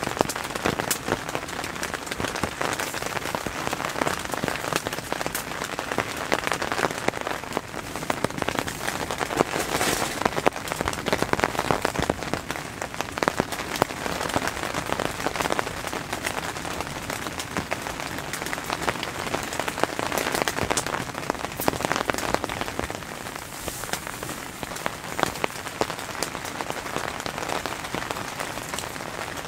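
Steady rain falling on a tent, heard from inside: a dense, even patter of many separate drop hits on the tent fabric and its clear plastic window.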